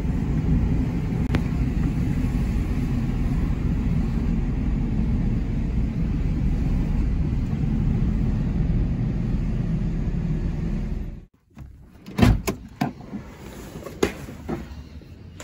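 Inside a car driving on rain-wet streets: a steady low drone of engine and tyre noise. About eleven seconds in it cuts off, and a few sharp clicks and knocks follow as a car door is handled and opened.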